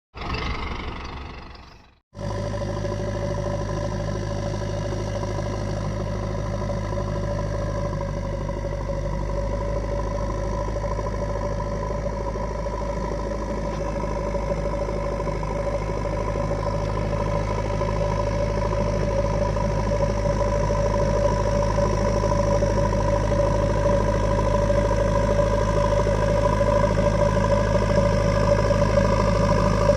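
Diesel engine of a JCB 3DX backhoe loader running steadily, growing slightly louder toward the end. A short, different sound fades out in the first two seconds before the engine comes in.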